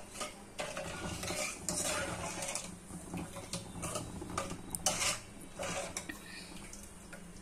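Metal ladle stirring thick tamarind-sugar chutney in a metal kadai, scraping and clinking against the pan at irregular intervals as the chutney cooks down toward a syrup.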